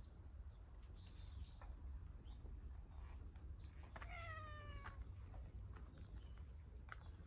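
A domestic cat meowing once, a call of about a second a little past the middle, its pitch falling slightly toward the end, over a low steady hum.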